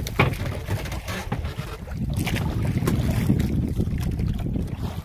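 Wind buffeting the microphone on a small wooden outrigger boat at sea, a steady low rumble, with a few sharp knocks.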